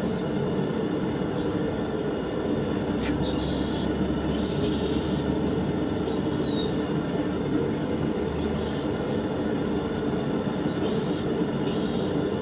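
A homemade forge furnace's two burners firing, giving a steady rushing noise with no change.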